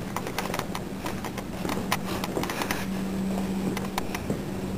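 Footsteps on a hard hallway floor with scattered clicks of camera handling, over a steady hum.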